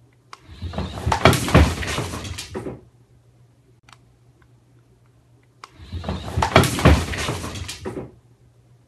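A toy remote-control car running across a tile floor in two bursts of about two and a half seconds each, the first starting just after the start and the second about halfway through, each a noisy rattling whir from its small motor and wheels.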